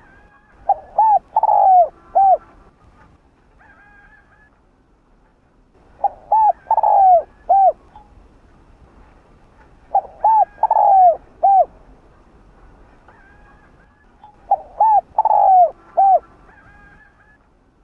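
Spotted dove cooing: four repeated song phrases about four seconds apart, each two short coos, a longer falling croo and a short final coo.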